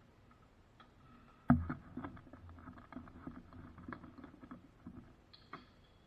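Off-screen kitchen handling noise: one sharp knock about a second and a half in, then a run of irregular small clicks and taps, with a faint high squeak near the end.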